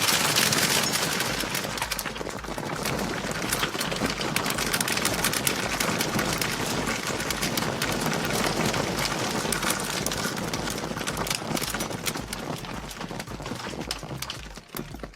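Popped popcorn pouring down onto the set and the presenter: many light hits in quick succession, thinning out near the end.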